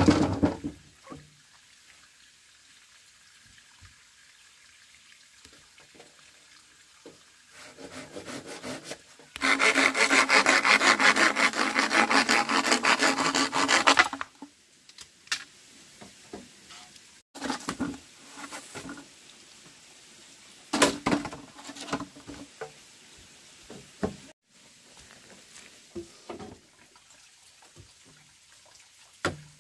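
Green bamboo being hand-sawn, a loud run of rapid rasping strokes lasting about four seconds midway through, with scattered knocks of bamboo and wood before and after it.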